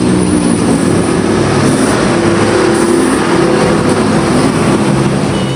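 Heavy diesel engine of a large truck-mounted mobile crane running as it drives along a road, a steady low engine note over loud road and traffic noise.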